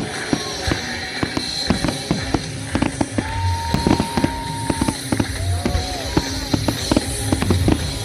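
Fireworks display: a dense run of sharp bangs and crackles from bursting shells, with a whistling shell rising through the middle for about two seconds and a shorter whistle after it. Music plays underneath.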